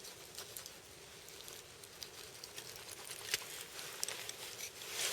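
Hunting knife working on a deer carcass: faint scattered clicks and light scraping as the blade cuts meat and the knives are handled, with a few sharper clicks after about three seconds.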